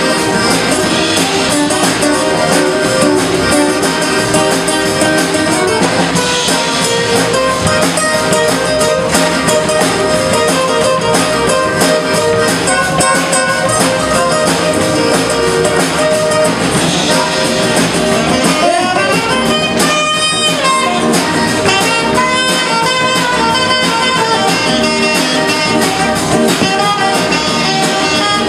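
Live zydeco band playing an instrumental passage: piano accordion, acoustic guitar, electric bass and alto saxophone over a steady beat, with a rubboard scraped along. There is no singing.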